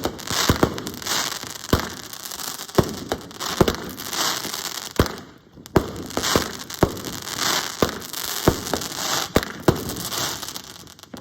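Fireworks going off in quick succession: sharp bangs about twice a second, irregularly spaced, with a continuous crackling hiss between them.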